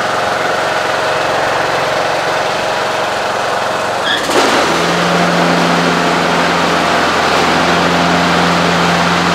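Husqvarna riding lawn mower engine running steadily. About four seconds in the mower blades are engaged: a brief click, then the deck blades spin up and add a steady, louder hum. This is a test of freshly replaced deck spindles, which run without the bearing racket they made before the repair.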